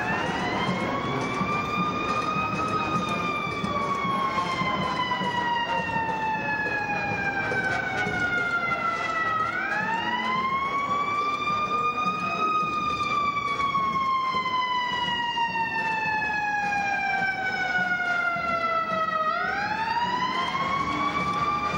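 A siren wailing in long slow cycles: the pitch climbs over about three seconds, then slides slowly down for about seven, and starts over, three times in all. A steady wash of background noise runs underneath.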